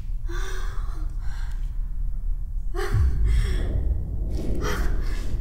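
A woman gasping in several short, breathy gasps, about four in all, with the strongest about three seconds in, over a steady low hum.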